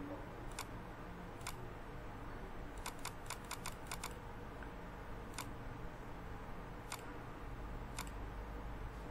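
Computer mouse button clicking. There are single clicks about a second apart, then a quick run of six or so about three seconds in, over a low steady hum.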